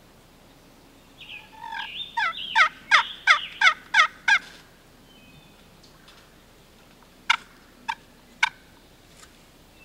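Wild turkey calling: a run of about seven quick falling yelps at roughly three a second, then, after a pause, three short sharp clucks about half a second apart.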